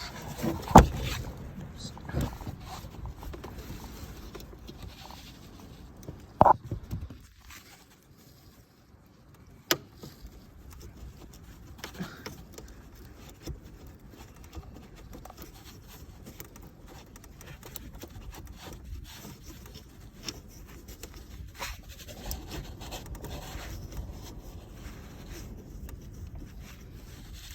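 Hands struggling to unplug a car's fog-light wiring connector behind the plastic wheel-arch liner, releasing its two side clips: rubbing and scraping, with scattered plastic clicks and knocks. The loudest knocks come within the first second and about six seconds in, and there is a sharp click near ten seconds.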